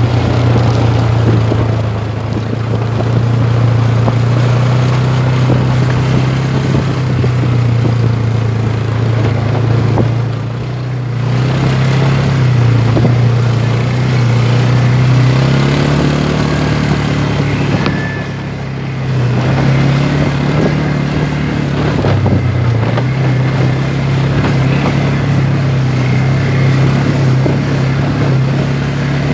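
Quad (ATV) engine running under load on a dirt track, its pitch rising and falling with the throttle. It eases off briefly twice, about a third of the way in and again past the middle.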